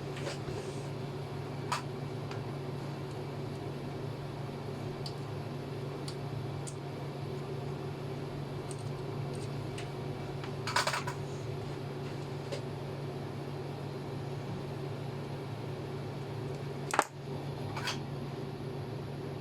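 Steady low electrical or fan hum from the workbench. A few sharp clicks and a short clatter come from tools and parts being handled during soldering.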